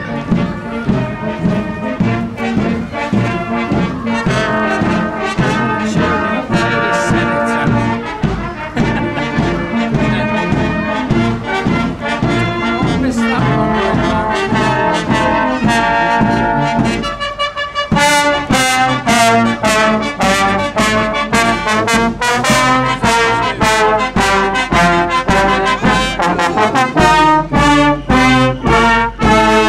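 Brass band of cornets, euphoniums, trombones and tubas playing a march while marching along the road, with a brief dip about two-thirds of the way through, then louder as the band comes level.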